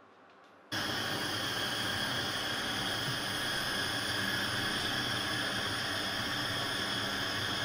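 Steady, even hiss at the stove where a little olive oil is heating in a nonstick wok, starting suddenly about a second in and holding constant.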